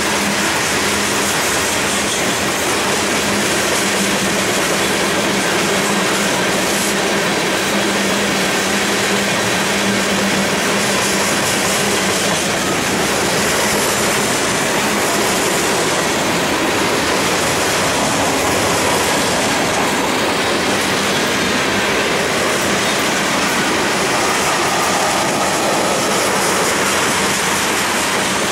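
Freight cars of a mixed freight train (covered hoppers, lumber-loaded flatcars, tank cars) rolling past close by: the steady, loud noise of steel wheels running on the rails, without pause.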